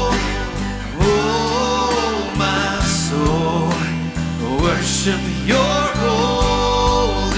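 Live contemporary worship song: singing over strummed acoustic guitar and drums, with sustained low notes underneath.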